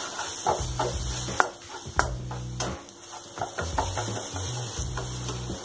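A spatula stirring and scraping thick, fried-down masala paste around a kadai, with a run of sharp clicks and scrapes as it strikes the pan, over soft background music with a low bass line.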